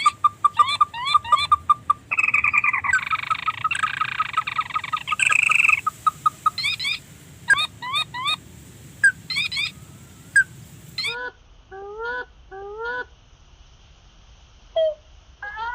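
Crake calls: series of short, rising call notes repeated in quick succession, with a denser buzzing trill about two to six seconds in.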